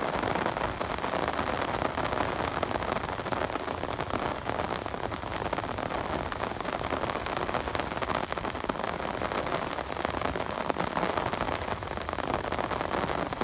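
Steady rain falling: a dense, even hiss of rainfall with many fine ticks of single drops hitting nearby surfaces.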